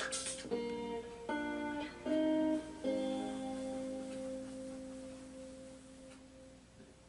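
Background guitar music: a few plucked chords changing every second or so, then a last chord left to ring and fade out.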